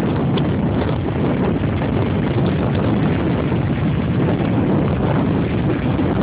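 Big storm waves breaking on the shore at high tide, mixed with wind buffeting the microphone: a loud, steady, low rumbling noise.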